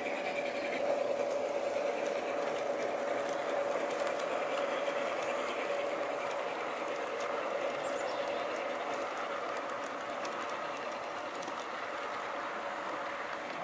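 G-scale model freight train running past on garden-railway track: the locomotive's electric motor and gears hum steadily while the wheels roll and tick over the rails, fading slowly as the train moves away.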